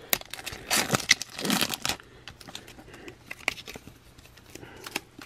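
Wrapper of a Topps baseball card pack being torn open and crinkled by hand. The tearing comes in bursts during the first two seconds, followed by a few lighter crinkles.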